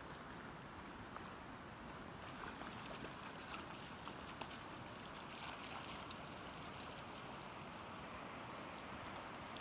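Steady rushing of a river running over a gravel bed, with a few faint clicks in the first half.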